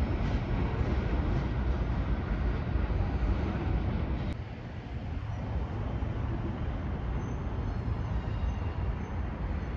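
Norfolk Southern manifest freight train rolling past, a steady dense rail noise. It cuts off suddenly about four seconds in, giving way to a quieter steady outdoor background hum.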